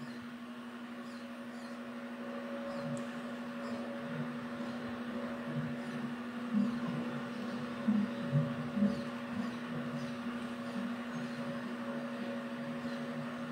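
A steady low hum from a machine or appliance, with a few faint soft sounds about halfway through.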